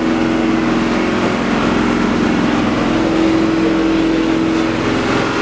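A boat's engine running steadily: a constant drone with a hiss over it.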